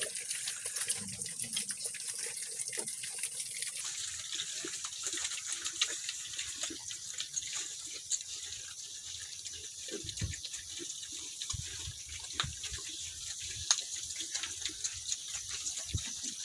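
A group of piglets feeding at a concrete trough: a dense run of small wet smacking and chomping sounds, with a few dull knocks about two-thirds of the way in and again near the end.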